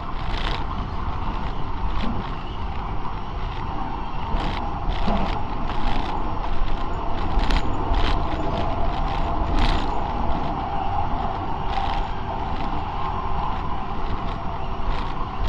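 Tram running along the track, heard from on board: a steady rumble with frequent, irregular clicks and rattles.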